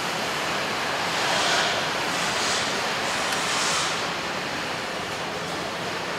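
Steady noise of a truck assembly hall, a dense hiss-like rush of machinery and air, with three short swells of hiss between about one and four seconds in.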